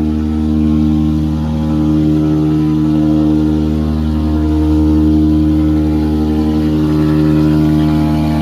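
Septic tank vacuum truck running steadily, a deep, even hum with slight swells in level.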